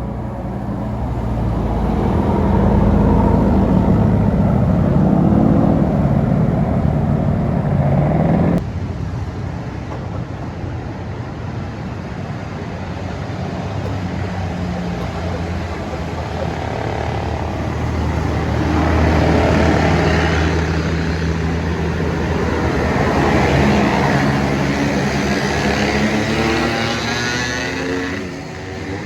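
Large buses driving past on the road, engine and tyre noise swelling as each one passes. The sound cuts off abruptly about eight and a half seconds in, and more buses pass in the second half.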